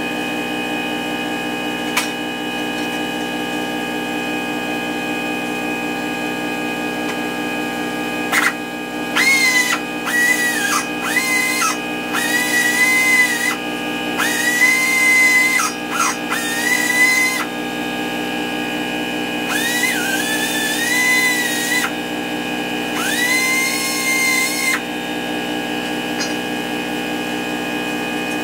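A compressed-air tool on a shop air hose fires a run of short, whistling blasts of air, about eight of them from roughly eight seconds in until near the end, each rising briefly in pitch as it starts. A steady machine hum runs underneath throughout.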